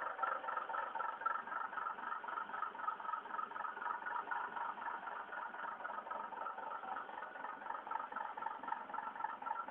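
RABA truck's diesel engine running steadily at a constant speed, with a fast, even pulse.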